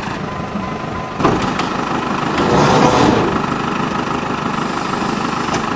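A vehicle engine running steadily, swelling louder about a second in and again around the middle.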